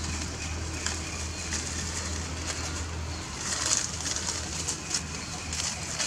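Dry leaves rustling and crackling as monkeys move over the leaf-covered forest floor, with bird calls in the background.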